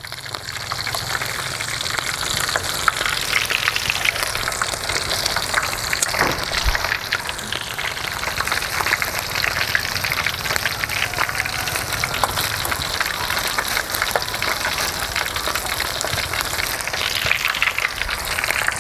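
Food frying in hot oil in a steel wok: a steady sizzle thick with fine crackles.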